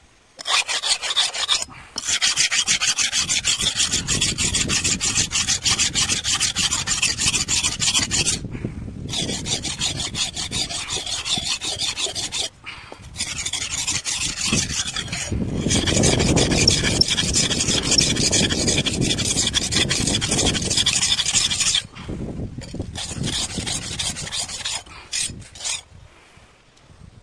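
Curved palmyra-tapping sickle (paalai aruva) being sharpened: the steel blade is scraped rapidly back and forth along a sharpening surface, a loud rasping in several runs of quick strokes with short pauses between.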